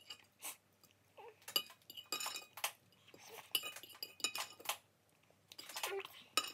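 Metal cutlery clinking and scraping against a plate in quick, irregular strikes with a bright ring, as the last of the instant noodles are scooped up.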